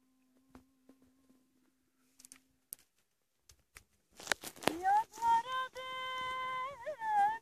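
A person's voice rising into a long, high held note about four seconds in, the pitch wavering and bending near the end, as in singing or a drawn-out call. A few light clicks and rustles come before it.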